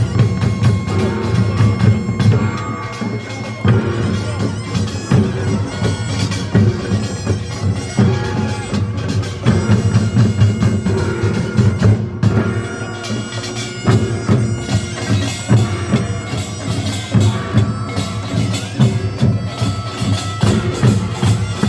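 Korean nongak (pungmul) band playing: a taepyeongso shawm's loud, reedy melody over dense drumming and gongs.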